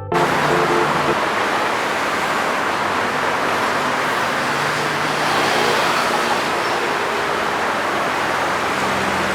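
Heavy diesel machinery running steadily under a loud, even hiss, with a low steady engine hum.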